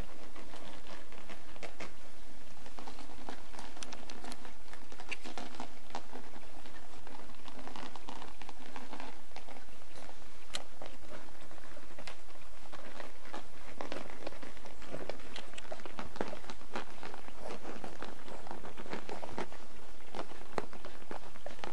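A litter of young Weimaraner puppies suckling at their mother, a busy stream of small wet smacks and irregular clicks from many mouths at once.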